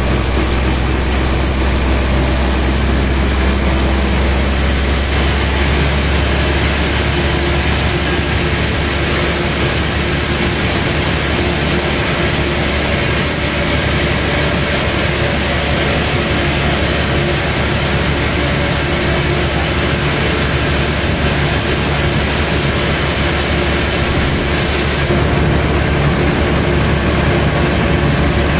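Sawmill machinery running steadily as large timber is sawn: a loud, even engine-and-saw noise with a deep low hum, unbroken throughout.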